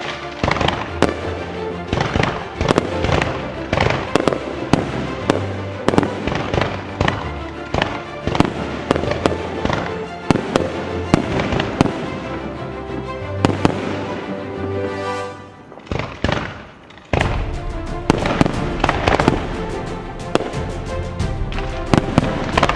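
Aerial fireworks shells bursting and crackling in quick succession over music. The bangs and music thin out briefly about two-thirds of the way through, then start again abruptly.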